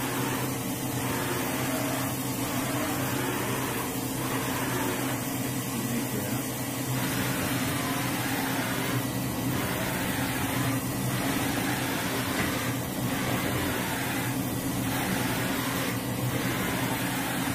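Doosan DNM 350/5AX five-axis CNC machining center running with a steady hum, with a few faint rising and falling whines through it, one falling near the end.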